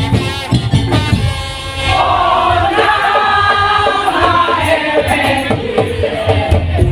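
Loud live band music: a wavering high melody line, singing or a reed pipe, over steady percussion.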